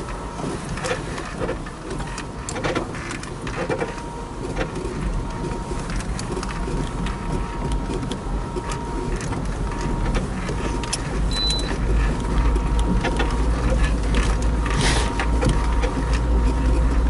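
Inside the cabin of a Lada 4x4 Niva driving slowly over a rough dirt track: a steady low rumble of engine and tyres, with scattered knocks, clicks and rattles from the body and suspension over the bumps. The rumble grows heavier in the last several seconds.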